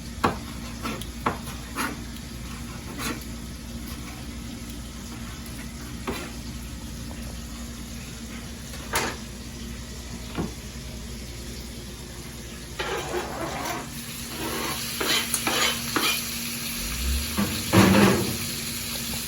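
Shrimp frying on high heat in a pan, a steady sizzle, with scattered sharp knife taps on a cutting board as steak is diced. About 13 seconds in the sizzle grows louder and denser, with a loud hiss near the end.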